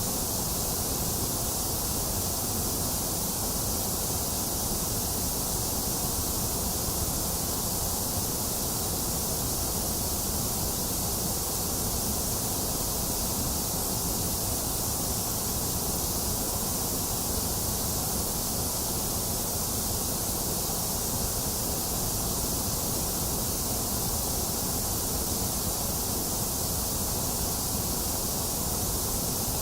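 Box fan running steadily together with rain, making a constant, even hiss with no thunder.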